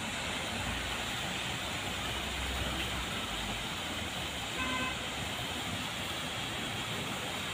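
Steady road traffic noise, with one short vehicle horn toot about two-thirds of the way through.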